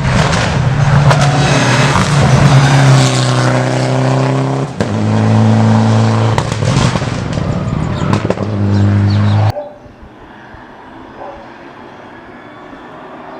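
Rally car engine at high revs under hard acceleration, holding a steady note with short breaks where it changes up a gear, twice. Near the end the engine sound cuts off suddenly to a faint background.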